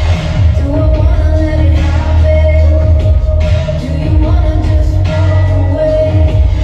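Loud riddim dubstep played through a DJ rig, dominated by heavy pulsing sub-bass with a repeating mid-range synth line and a sung vocal.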